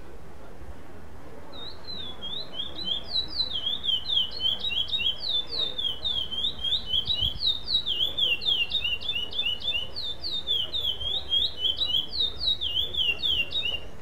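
Male chestnut-bellied seed finch (curió) singing one long, unbroken phrase of quick down-slurred whistled notes, about four a second, starting a second or two in. This is trained competition song of the no-repetition class.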